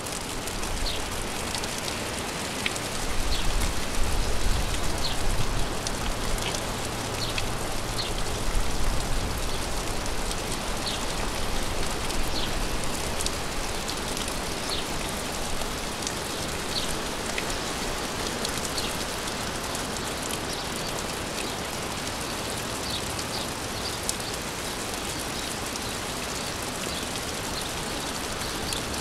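Steady rain falling: a dense, even hiss with separate drops ticking through it here and there. A low rumble swells and fades within the first ten seconds or so.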